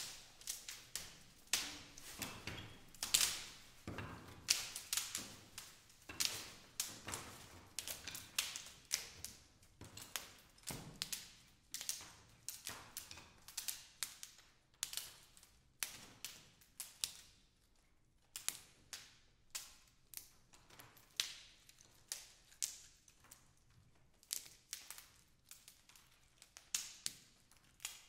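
Dry wooden sticks and twigs clicking and cracking in an irregular series of sharp knocks, roughly one or two a second, each with a short ringing decay.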